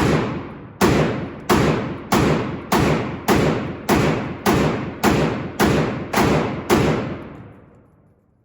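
A series of about a dozen sharp, heavy thuds at an even pace of a little under two a second, each ringing out before the next. They stop about seven seconds in and fade away.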